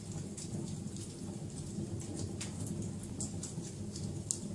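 Wood fire crackling: a steady low rumble of flames with scattered sharp pops and snaps, one louder pop near the end.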